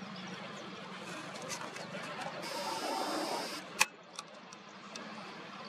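Camera's zoom motor whirring for about a second, then one sharp click, over faint outdoor background with scattered small ticks.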